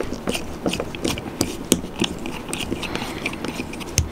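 Small hex driver backing the outer cover screws out of an RC car's plastic differential cup: a run of light, irregular ticks and scrapes from the tool and parts being handled, with one sharper click near the end.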